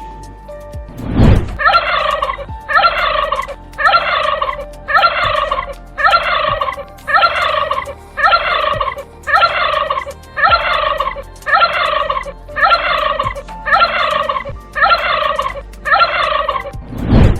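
An animal call repeated about fifteen times at roughly one a second, each call falling in pitch and identical to the last, a looped sound effect. A loud thump comes just before the calls begin and again at the end.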